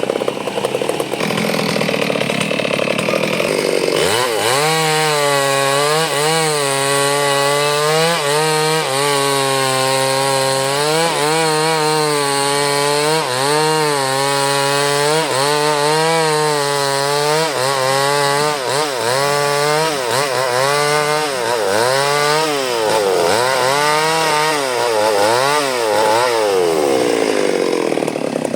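Two-stroke chainsaw cutting durian wood. The engine note dips and climbs again and again through the cut, with a rougher, noisier stretch at the start and near the end.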